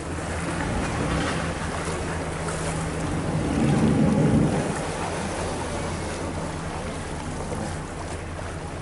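A boat's engine running steadily, with water noise and wind on the microphone; a louder low surge about four seconds in.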